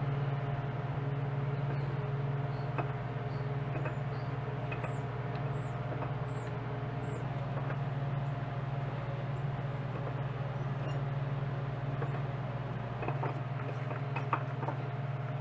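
Metal lathe running with a steady hum while a die cuts threads on a small steel rod, with faint ticks and squeaks from the cut.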